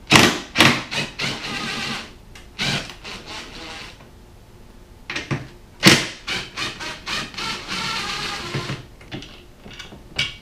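Cordless power tool running in short spells, the longest about a second in and again near the end, as the passenger grab-rail bolts are backed out; sharp clicks and knocks of the socket and metal parts come in between.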